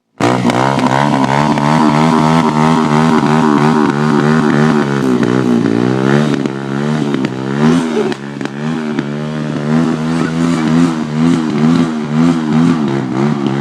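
ATV engine running at raised revs, its pitch wobbling quickly up and down as the throttle is worked, with a brief dip about eight seconds in.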